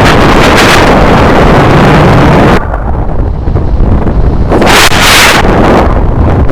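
Strong wind buffeting the microphone in flight, a loud rushing that eases about two and a half seconds in and gusts up again near five seconds.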